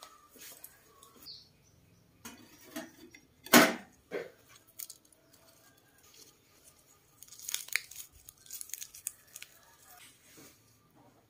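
Food and dishes handled on a table: a few scattered knocks, the loudest a sharp one about three and a half seconds in, and a crisp rustle of lettuce leaves and herbs being arranged by hand about two-thirds of the way through.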